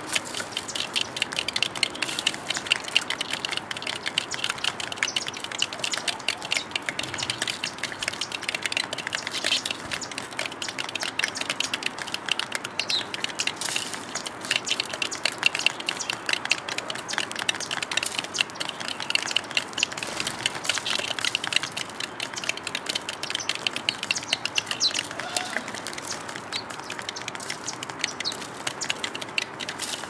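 Small birds feeding at a metal tray: a continuous run of rapid pecking and seed-cracking clicks, mixed with house sparrow chirps.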